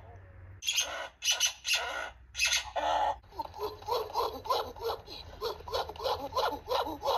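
Great ape calls: several loud shrieks in the first few seconds, then a fast run of short calls, about three or four a second.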